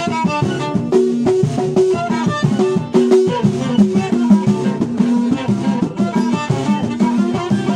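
Instrumental passage of a live folk music session with no added sound effects: a melody of quick stepping notes over steady percussion.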